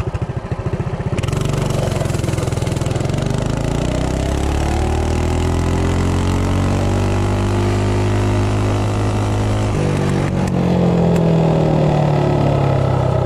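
Coleman CT200U minibike's 196cc single-cylinder engine breathing through an aftermarket header pipe with the stock jet: it idles for about a second, then goes to full throttle for a 0-to-30 mph launch. Its pitch climbs over several seconds, levels off and falls again near the end as the bike slows, with wind rushing on the microphone.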